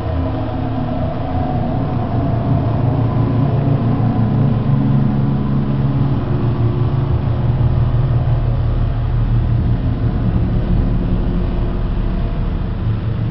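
Steady low droning rumble with a few held tones that shift slowly in pitch.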